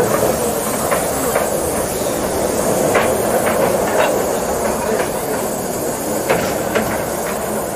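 Steam locomotives at work: a steady hiss of steam as a small narrow-gauge steam locomotive rolls past, with scattered sharp clicks and knocks.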